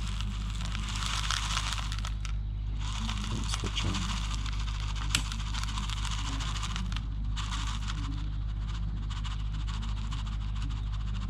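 Wheat kernels pouring and rattling onto a scale and into a moisture tester: a dry, hissing patter that pauses twice, with one sharp click about five seconds in, over a steady low hum.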